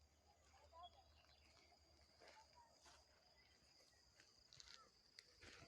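Near silence: faint outdoor ambience, with a steady high hum and a few soft bird chirps.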